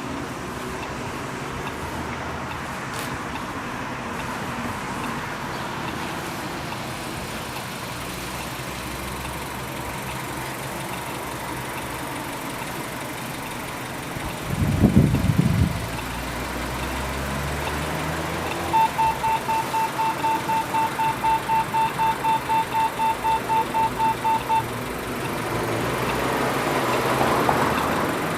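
Acoustic signal of a pedestrian traffic light beeping in quick even pulses, about three a second for some six seconds, starting about two-thirds of the way in, over steady street traffic. A short loud low rumble sounds about halfway through, and a vehicle noise swells up near the end.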